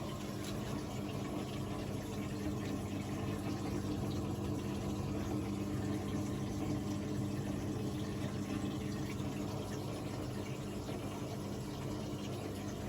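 Panasonic NA-147VB5 washing machine moving water: a steady hum with water running through it, while the drum is still.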